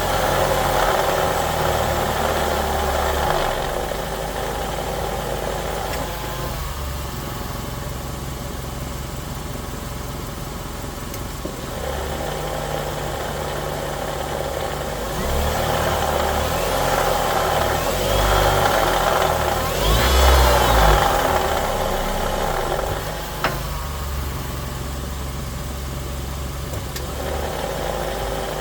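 Nissan CVT transmission making a growling, grinding noise with the car running, the sign of CVT trouble. The noise swells past the middle, with a rising whine at its loudest, and one sharp click follows a few seconds later.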